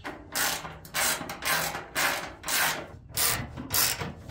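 Hand socket ratchet tightening a fender bolt on a car body: a run of pawl clicks with each swing of the handle, about two swings a second.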